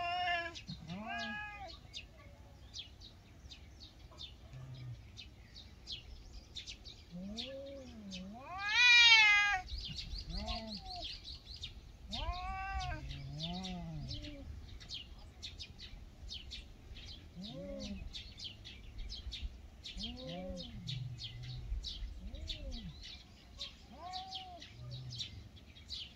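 Two ginger feral cats in a fight standoff, yowling in long calls that rise and fall in pitch, with one loud, high screech about nine seconds in. It is a fight that the feeder takes for competition over food.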